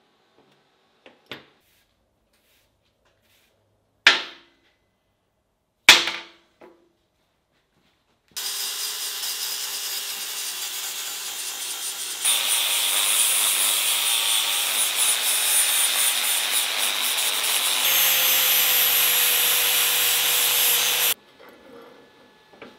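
Two sharp strikes with a short ring, about two seconds apart, then a Metabo angle grinder with a flap disc grinding the steel axe head. The grinding runs steadily for about thirteen seconds, its tone changing suddenly twice, and cuts off abruptly.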